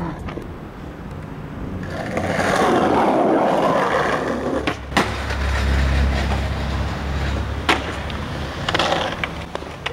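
Skateboard wheels rolling over rough asphalt with a steady rumble, broken in the second half by a few sharp clacks of the board.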